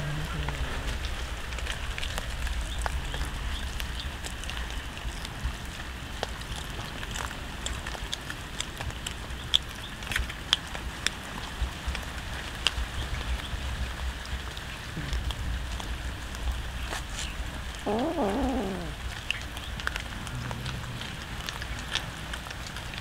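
Several cats chewing and crunching whole raw fish, a steady run of wet clicks and crackles. One short falling meow about three-quarters of the way through.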